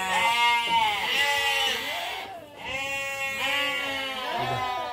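Several sheep bleating in loud, overlapping, wavering calls, with a brief lull midway. They are hungry and calling for feed.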